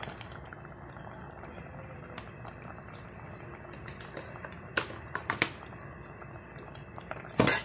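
Squid adobo simmering in a stainless steel pot: a steady bubbling hiss with small pops. Two sharp clicks come about five seconds in, and a louder knock near the end.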